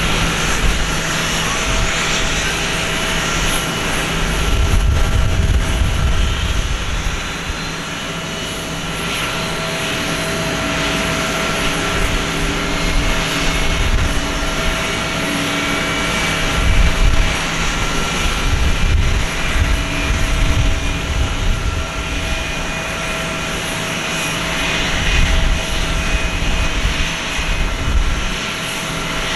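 Airbus A321 jet airliner during pushback: a steady high whine with several held tones and a faint slowly rising pitch, over a low rumble that swells and fades several times.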